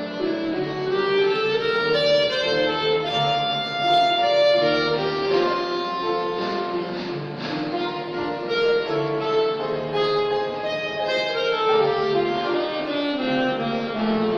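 Saxophone playing a flowing melody of held, connected notes, with a lower accompaniment underneath.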